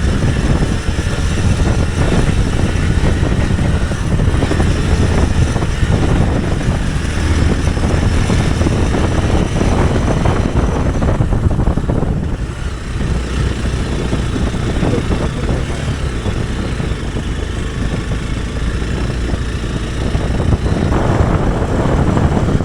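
Hero Xpulse 200 Pro's single-cylinder engine running under way. It goes quieter for a stretch a little past halfway and picks up again near the end.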